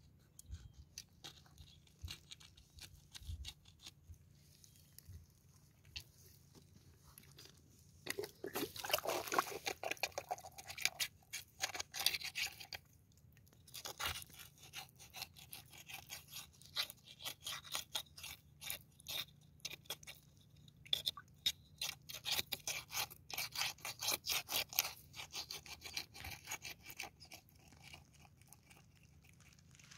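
A thin rod prodding and scraping inside a water-filled mud crab burrow, making wet, crunching scrapes in the mud. The strokes come in two busy stretches, about nine seconds in and again past twenty seconds, with a short lull between.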